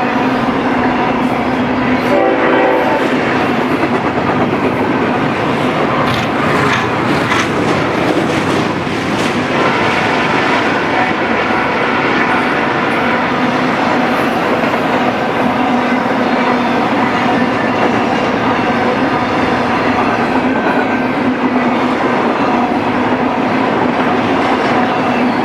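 Freight train rolling past close by: steady rumble and clatter of the wheels on the rails. A locomotive air horn sounds briefly, about two seconds in.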